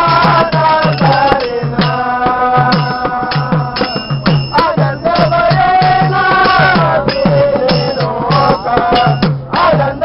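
A group of men singing a bhajan together in long held, wavering lines, over a hand drum beaten in a steady rhythm of about three strokes a second with a rattling percussion on top. The singing breaks off briefly twice and starts again.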